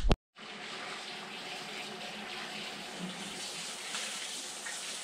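Kitchen faucet running steadily into a sink, starting about half a second in.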